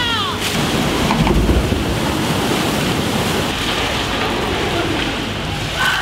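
Water rushing and splashing on a MACK Rides log flume, a steady wash of water noise from the flume's splash and flowing channel.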